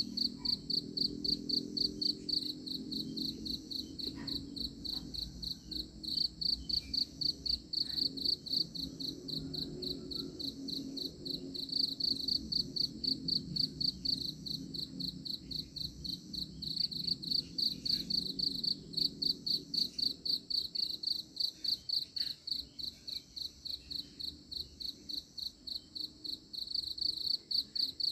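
A cricket chirping steadily in quick, even pulses, several a second, over a low rumble.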